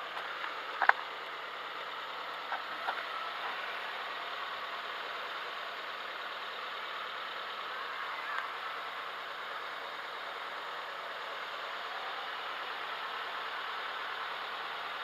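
Car engine idling steadily, heard from inside the cabin, with a few small clicks in the first few seconds.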